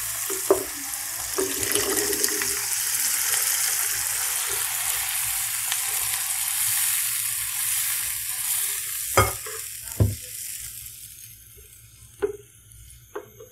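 Onion, tomato and spice masala sizzling loudly in hot oil in a pan as boiled chickpeas and their cooking water are added and stirred in; the sizzle dies away about ten seconds in. A few sharp knocks of the spatula against the pan stand out, two of them close together near the end of the sizzle.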